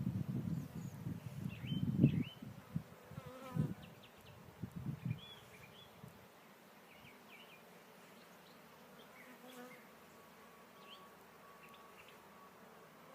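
Honey bees buzzing around an open hive, loud and swelling as they fly close past the microphone for about the first five seconds, then fading to a faint hum.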